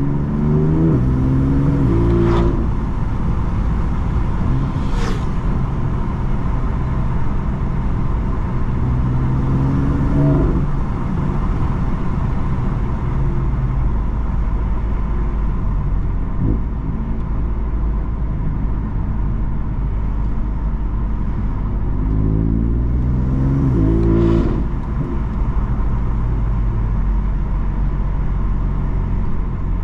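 BMW M3 F80's S55 twin-turbo straight-six with an M Performance exhaust, pulling under acceleration. Its note rises for the first couple of seconds and breaks with a sharp crack at an upshift, then runs at fairly steady revs. About three-quarters of the way through it climbs again and breaks at a second cracking upshift.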